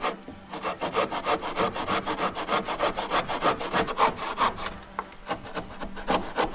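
Handsaw cutting through the end of a wooden board, in quick, even back-and-forth strokes that slow and thin out after about five seconds.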